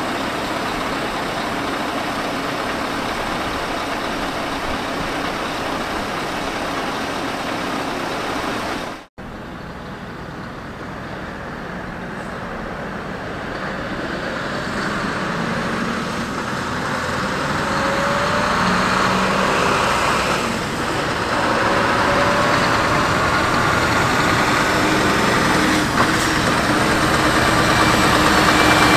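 Heavy-haul truck's diesel engine running steadily, cut off abruptly about nine seconds in; then a heavy transport convoy approaching, its truck engine and tyre noise growing steadily louder.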